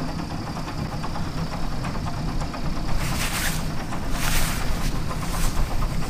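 A sailboat's engine running steadily under way. From about halfway, wind gusts buffet the microphone several times.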